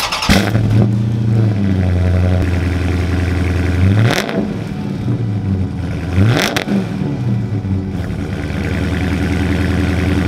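Dodge Charger Scat Pack's 6.4-litre (392) HEMI V8 cold-starting: it fires right at the start and settles into a loud, fast cold idle through the exhaust. It is revved briefly twice, about four and six and a half seconds in, then idles on.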